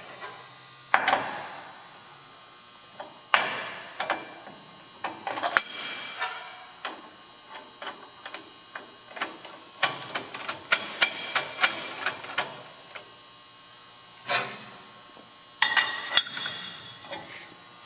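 Steel parts of a hammer union nut setup clanking and clinking together as the nut and plates go onto the grinder's spindle and the hex nut is tightened down with a wrench. Scattered single knocks, with a quick run of metallic clicks around the middle.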